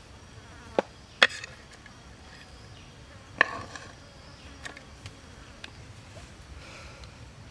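A few sharp taps and knocks as food and dishes are handled on plastic plates, three of them louder than the rest, over faint insect buzzing.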